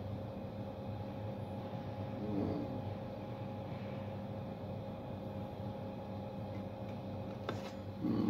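Steady electrical hum from a La Marzocco Linea Classic espresso machine while its coffee boiler heats up to the newly set temperature. A few short handling knocks come near the end.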